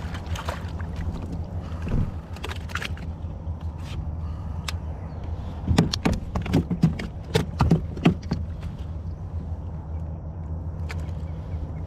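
Boat motor running steadily with a low hum, overlaid by scattered knocks and clicks, with a run of louder knocks about six to eight seconds in.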